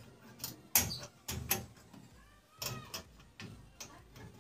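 Irregular clicks and knocks of a room heater's coiled heating-element rod and its metal end terminals being handled and fitted against the corrugated metal reflector, about eight in all, the loudest about three-quarters of a second in.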